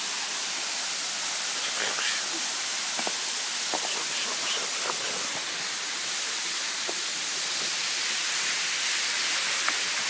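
Waterfall spilling onto rock and into a shallow pool: a steady rushing hiss, with a few faint short clicks over it.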